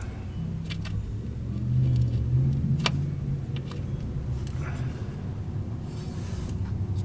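A low, steady rumble like a motor vehicle engine running, with a few sharp clicks and taps over it, the clearest about three seconds in.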